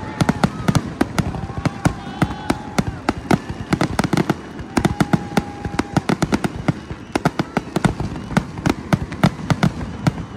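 Aerial fireworks display: a rapid barrage of bursting shells, many sharp bangs a second with no let-up, and a faint steady whistle now and then between them.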